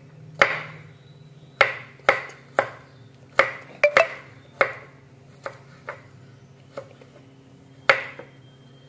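Kitchen knife slicing garlic cloves on a wooden cutting board: about a dozen sharp knocks of the blade on the wood, irregularly spaced.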